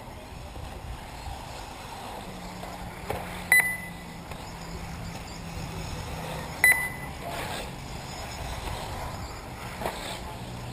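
Two short, high electronic beeps about three seconds apart from the race's lap-counting system, each marking an RC buggy crossing the timing line. Under them runs steady track noise, with a low steady hum from about two seconds in.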